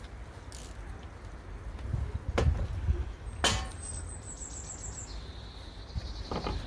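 A small songbird singing: a string of quick high notes dropping into a lower trill, about four seconds in. Before it come two sharp clicks, over a low rumble of wind on the microphone.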